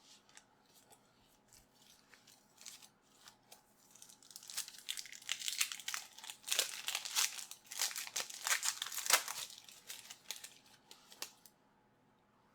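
A trading card pack's wrapper being torn open and crinkled by hand: a few light rustles at first, then a dense crackling run lasting several seconds that stops near the end.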